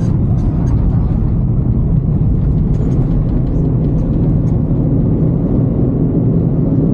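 Airbus A350 cabin noise around landing and taxi: a steady, loud, low rumble with a few faint light rattles.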